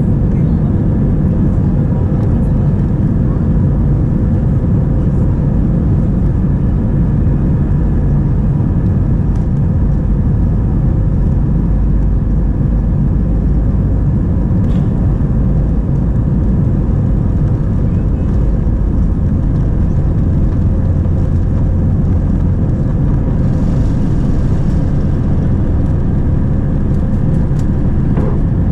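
Inside the cabin of an Airbus A320 on its takeoff roll: its two CFM56-5 turbofans at takeoff thrust give a loud, steady drone, heavy in the low end, with a few steady tones through it.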